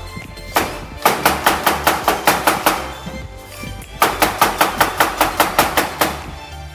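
Chef's knife chopping red onion on an end-grain wooden cutting board: two quick runs of sharp chops, about six a second, with a short pause between them.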